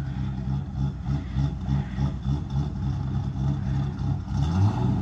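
Ford 6.8-litre V10 engine of a motorhome idling steadily in neutral, with the pitch rising briefly about four and a half seconds in.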